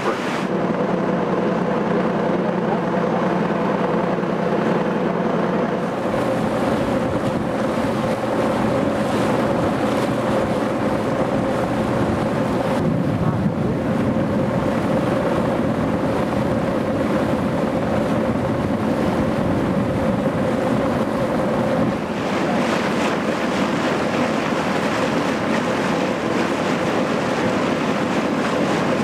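Passenger boat's engine running steadily under way, a constant hum, with wind on the microphone and water rushing past the hull.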